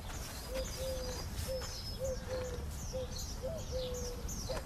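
Birdsong: quick high chirps repeating about three times a second, over a lower short whistled note that repeats about twice a second.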